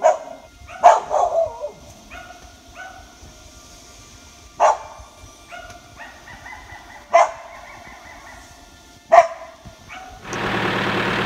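A dog barking: a quick run of sharp barks in the first second and a half, then single barks every two to three seconds. Near the end, a tractor engine running steadily cuts in and takes over.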